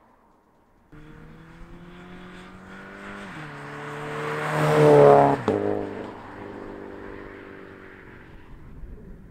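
Subaru BRZ's 2.0-litre flat-four through a Nameless Performance cat-back exhaust, driving past: the exhaust note grows louder as the car approaches and is loudest as it passes, with a short sharp crack. The pitch then drops and the sound fades as the car drives away.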